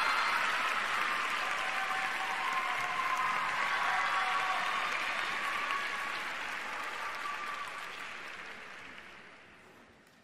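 Arena crowd applauding, dying away over the last three seconds to near quiet.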